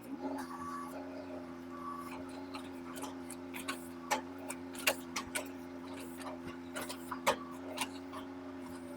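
Mini excavator engine revving up at the start and then running steadily under hydraulic load. Over it come irregular sharp cracks and ticks as the ripper claw tears through tree roots and soil.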